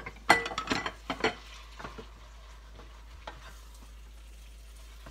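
A utensil scraping and clacking against a deep frying pan as noodles and vegetables are stirred, with a flurry of sharp knocks in the first second or so. After that a faint steady sizzle from the pan, with an odd tap.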